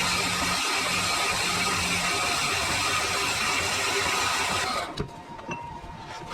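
Metal-cutting machine tool running under load, a loud steady noise with a low hum and a few steady whining tones. It cuts off abruptly about five seconds in, leaving a few light clicks.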